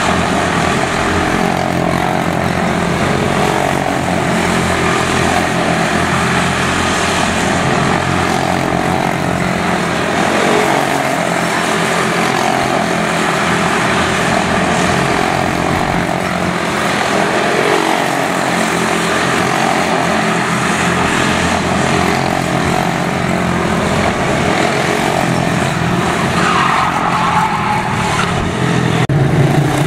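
Several quarter-midget race cars with single-cylinder Briggs & Stratton Animal engines running together at racing speed, their pitch rising and falling as they lap the track.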